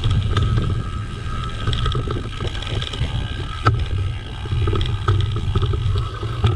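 Mountain bike ridden fast along a dirt woodland trail: wind buffeting the camera microphone over the rumble of the tyres and small rattles from the bike, with one sharp knock a little past the middle.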